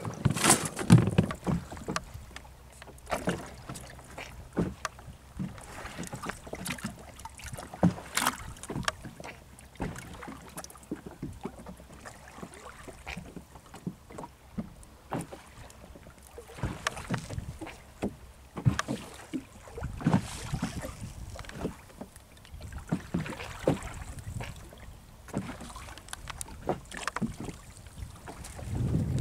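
Irregular knocks and clatter in a small open fishing boat at sea as a caught fish and handline gear are handled against the hull. The loudest knocks come about a second in and again near eight seconds.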